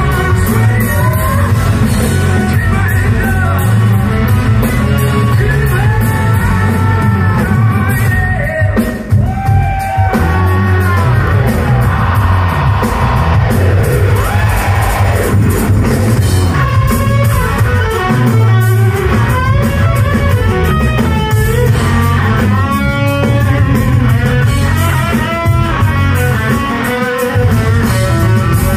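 A hard rock band playing live and loud in a large hall: distorted electric guitars, bass and drum kit. A lead guitar carries most of the section with bending notes, and there are vocals near the start.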